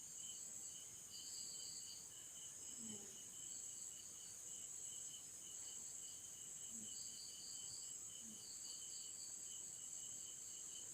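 Faint insect chirring in the background: steady high-pitched trilling with pulsing, broken notes.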